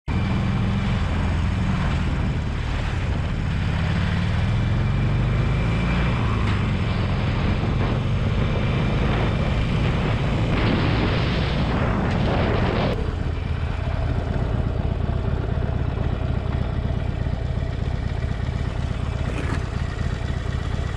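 Cruiser motorcycle engine under way, its pitch rising as it accelerates a few seconds in; a rush of wind noise for a couple of seconds past the middle, after which the engine runs slower and steadier as the bike comes to a stop.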